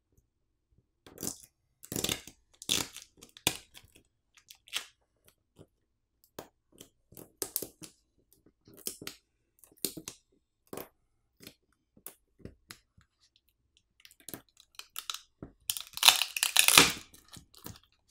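Adhesive pull pouch on a Samsung Galaxy A55's battery being peeled back to free the battery, crackling and tearing in short, scattered snaps, with a thicker, louder run of crackling near the end.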